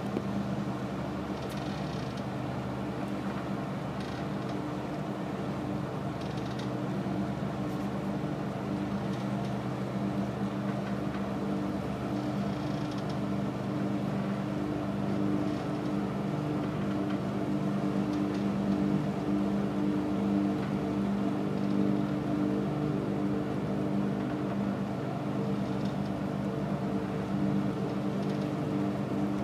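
Steady hum of ships' diesel engines: a low drone of several even tones that holds its pitch, swelling slightly partway through.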